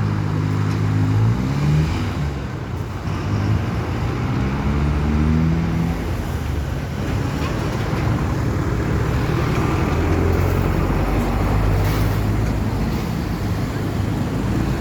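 Motor vehicle engine running and pulling away, its pitch rising in steps twice in the first six seconds, over steady road noise.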